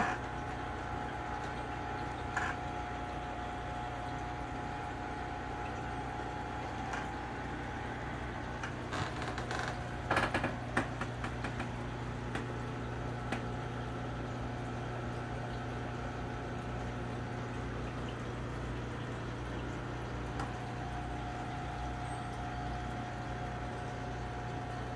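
Aquarium water bubbling and trickling over a steady low hum from the tank's pump. A short cluster of clicks comes about ten seconds in.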